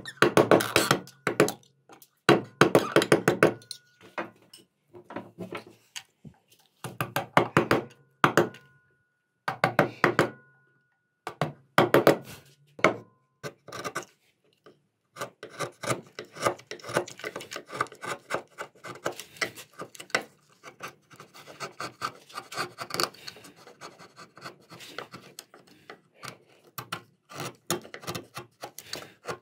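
Hand chisels cutting walnut in a relief carving: short bursts of rapid, sharp tapping clicks for the first half, then about halfway through a steady run of scraping, crackling cuts as a flat chisel is pushed through the wood and chips lift off.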